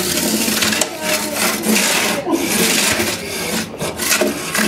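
Antweight combat robots scraping and grinding against each other and the arena's board floor, with repeated knocks as they collide.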